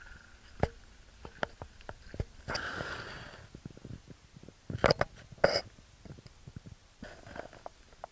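Knocks, clicks and rustles of an action camera carried low along a muddy woodland path. There is a rustling hiss about two and a half seconds in and two sharper noises around five seconds.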